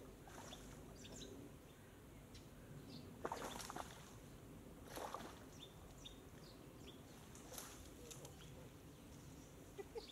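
Quiet outdoor ambience: a faint steady background hum with small bird chirps, and a few brief soft knocks about three and a half, five and seven and a half seconds in.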